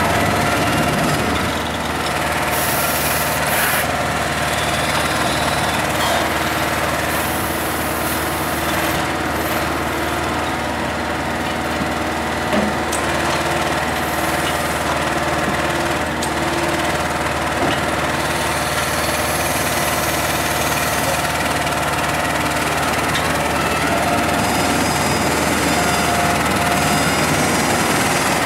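Heavy truck's diesel engine running steadily to power a truck-mounted loader crane's hydraulics as it lifts and sets interlocking concrete blocks, with a single short knock about halfway through.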